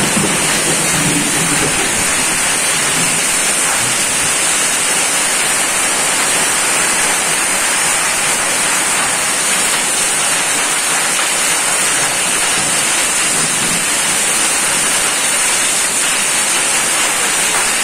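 Heavy rain pouring steadily onto waterlogged ground, a dense, even hiss that holds at one level throughout.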